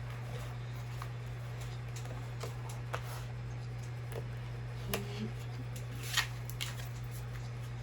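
Tarot cards being handled and shuffled: scattered soft clicks and rustles, the sharpest about six seconds in, over a steady low hum.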